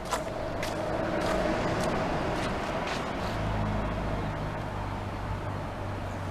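A motor vehicle's engine drone, steady and low, swelling about a second in and deepening about halfway through. Light footsteps tick about twice a second in the first half.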